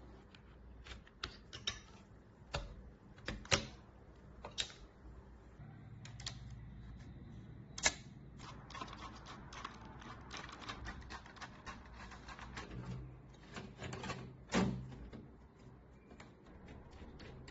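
Irregular light clicks and taps of hard objects, with a few sharper knocks, over a low hum that sets in about six seconds in.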